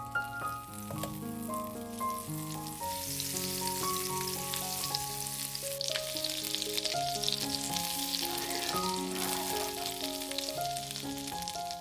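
Food sizzling and crackling as it fries in a pan, growing louder about three seconds in, over soft piano background music.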